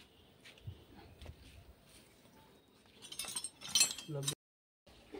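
Light metallic clinks of steel hand tools and small engine parts around a stripped cylinder head, faint at first and busier about three seconds in, with a brief voice near the end.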